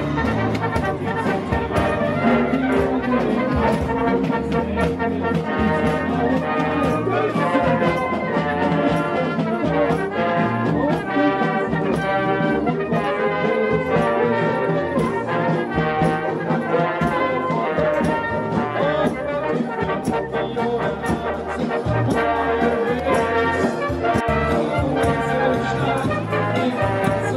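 Marching band of brass and drums playing a march, trumpets and trombones over a steady drumbeat.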